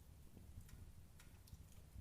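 Wood fire burning in a fireplace: faint crackling, a few sparse sharp pops of the burning logs over a low steady rumble.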